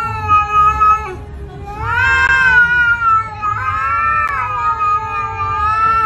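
Domestic cat yowling in long drawn-out calls, three in a row: one ends about a second in, the next rises and falls in pitch, and the last is held almost to the end.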